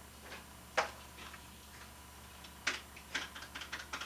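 Cash register keys being pressed: separate sharp clicks, one loud one about a second in, then a quicker run of lighter clicks near the end.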